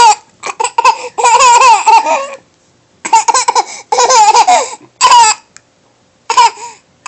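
A young child laughing in high-pitched bouts of giggles: four bursts, the last two brief, with short pauses between them.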